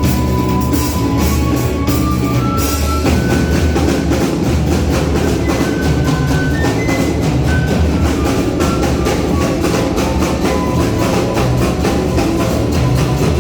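Live band playing an instrumental passage: drums keep a steady beat under a high melody line of held notes that steps up and down, over a full low end.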